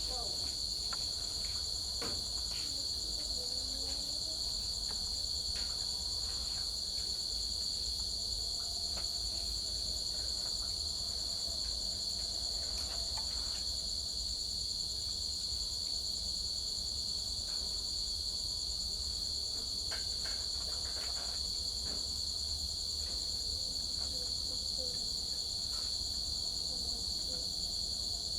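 Crickets trilling steadily and without a break, with a few faint clicks now and then.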